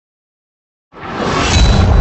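Silence, then about a second in a cinematic whoosh swells in quickly over a deep rumble: the sound effect of an animated logo intro.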